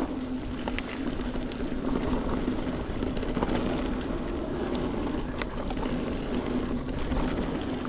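Mountain bike being ridden along a dirt trail: a steady rush of wind and tyre noise with a few scattered clicks and rattles from the bike over bumps.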